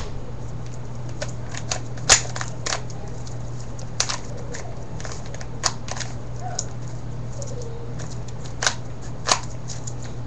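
Hard plastic pieces of a puzzle cube clicking and clacking irregularly as it is turned and pieces are fitted by hand, with a few sharper snaps, over a steady low hum.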